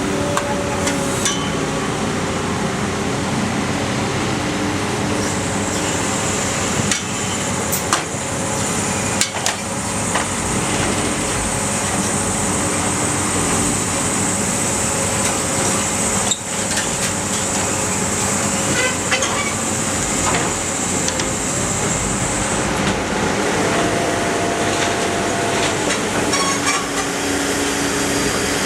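Iron Pack car baler running: a steady machine din with a high whine through most of the middle and scattered sharp metal knocks and clanks.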